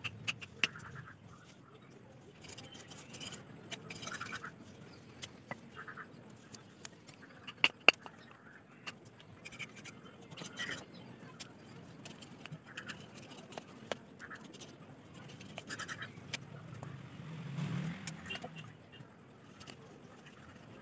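A knife scraping and shaving thin bamboo strips in short irregular strokes, with scattered clicks and knocks of the blade on the bamboo and the wooden block; two sharp knocks about eight seconds in are the loudest.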